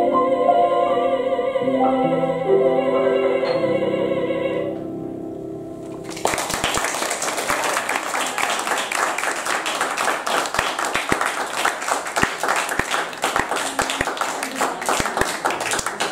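A coloratura soprano sings the closing notes of a song with vibrato over sustained accompaniment; the music fades out about four and a half seconds in. From about six seconds in, a small audience applauds.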